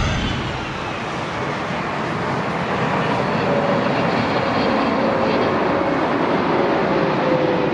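A Boeing 777 jet airliner passing low on approach with its gear down, its twin engines making a loud, steady noise. A steady engine fan tone comes in about halfway through and drops slightly in pitch near the end as the plane goes by.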